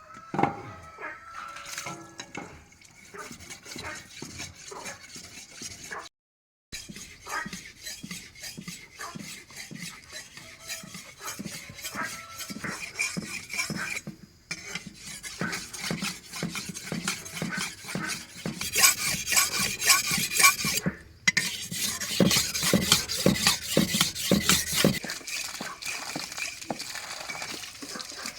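Cooking utensils clinking and scraping against a pot or pan, as food is stirred and worked, in a run of short, busy clatters broken by a few abrupt cuts.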